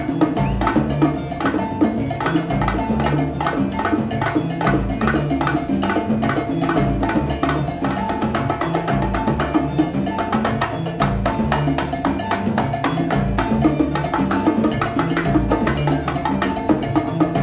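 Salsa band playing, with bongos and cowbell carrying a fast, dense rhythm over a stepping bass line.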